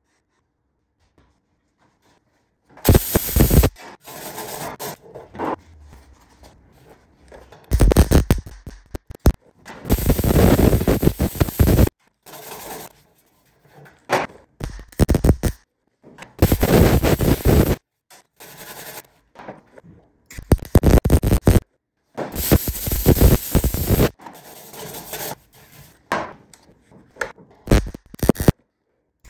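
MIG welder stitch-welding a sheet-steel patch into the old fuel filler hole of a 1967 Chevy C10 cab. Starting about three seconds in, it makes a string of crackling bursts, each one to two seconds long, with short pauses between.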